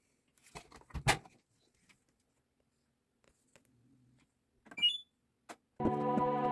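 A few sharp clicks and knocks, the loudest about a second in, and another short cluster with a brief high tone about five seconds in. Steady background music starts near the end.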